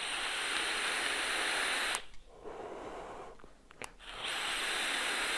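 Air being drawn hard through a Wotofo Profile 1.5 rebuildable dripping atomizer fired at 66 W, with the coil vaporising the liquid: a steady hiss of about two seconds, a quieter pause about two seconds in, then a second hiss of about two seconds that stops suddenly.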